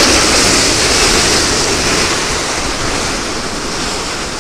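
Sea surf breaking and washing over the concrete tetrapods of a breakwater, a steady rushing surge that eases slightly toward the end, with wind rumbling on the microphone.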